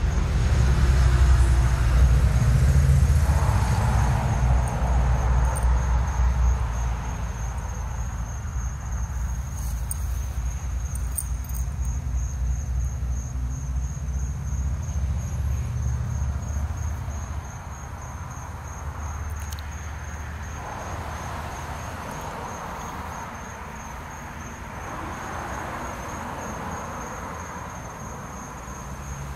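Night ambience: insects trilling in one steady high-pitched tone over a low rumble. The rumble is loudest in the first few seconds and drops to a lower level about seventeen seconds in.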